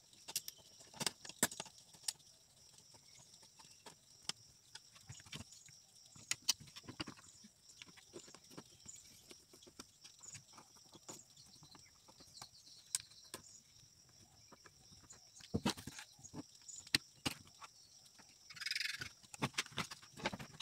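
Scattered light clicks and taps of hands working on an opened induction cooktop: wire connectors pushed onto the control board and handled against the plastic housing. A short scraping rustle comes near the end, over a faint steady high-pitched hum.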